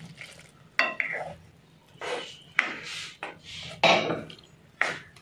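A plastic spatula stirring a thick curry in a non-stick wok, scraping across the pan and knocking against it with four or so sharp clacks spread through the stirring.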